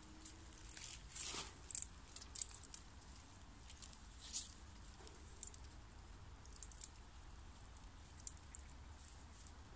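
Scattered soft scratches and clicks of hands wrapping and tying a thin cord around a tree trunk. A few sharper scrapes come in the first few seconds.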